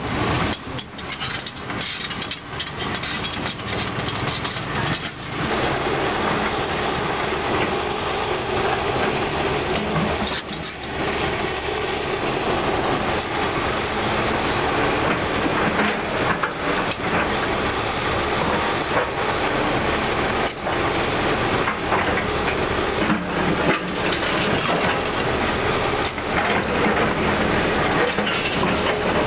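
Caterpillar 320D2 hydraulic excavator working: its diesel engine runs steadily under the hydraulic load, broken by several brief drops in level.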